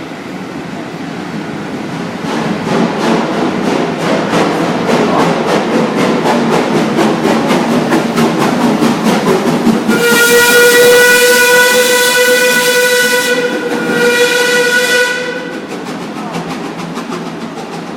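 Heritage train passing through an underground station with a fast, even beat of about four strokes a second. About ten seconds in, a locomotive whistle is blown and held for about five seconds, loud and steady-pitched, before the train noise fades down.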